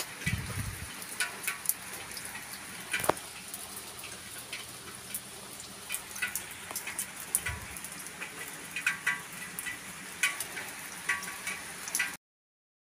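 Rain falling, many separate drops over a steady hiss. Two brief low thumps, about half a second in and at about seven and a half seconds. The sound cuts off suddenly near the end.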